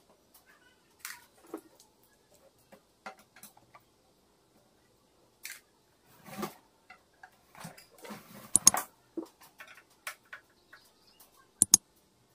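Irregular small clicks, knocks and scrapes of an Ashley HMD48 power amplifier being taken apart by hand: screws and metal case parts being handled. Two sharp clicks come about two-thirds through, and another comes near the end.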